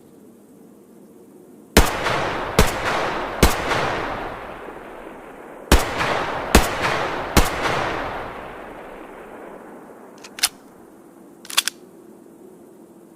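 H&K MP5 submachine gun fired in single shots, two groups of three about a second apart, each shot trailing off in a long echo. Two short clicks follow near the end.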